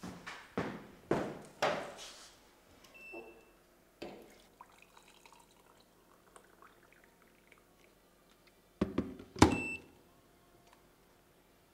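Hot water poured from an electric kettle into a mug, a faint trickle. Around it, a run of thuds about two a second in the first two seconds, two short beeps, and a loud clatter of knocks about nine seconds in.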